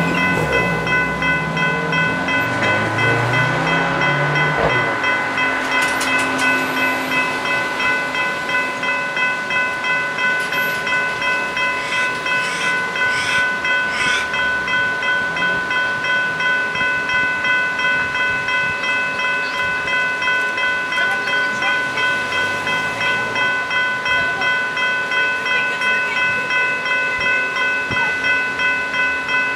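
General Signals Type 3 electronic level-crossing bells ringing in a steady, fast, even pulse, the warning of an activated crossing while the boom gates are lowered.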